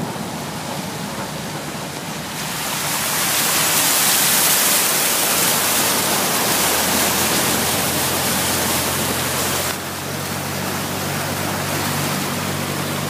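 Floodwater rushing and splashing along the side of a vehicle driving through it: a steady hiss that swells about two seconds in and eases back near the end, over the low hum of the engine.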